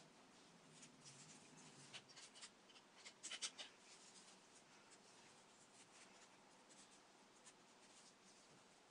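Faint rustling and crinkling of paper strips as they are handled and threaded into a paper chain, with a short cluster of louder crinkles about three seconds in.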